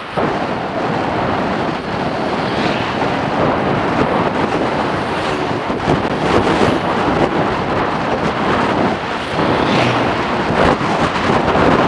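Wind buffeting the microphone: a loud, rough rushing that rises and falls unevenly.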